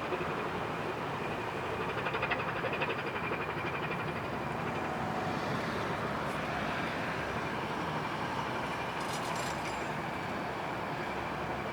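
Coastal cargo ship's diesel engine running steadily as the ship passes, with a rapid rhythmic pulsing in the first few seconds.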